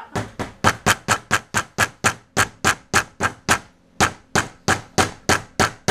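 A hammer driving small nails through the ends of a hose into the wooden dowel that joins them. Quick, even blows, about three or four a second, with a short break about two-thirds of the way through.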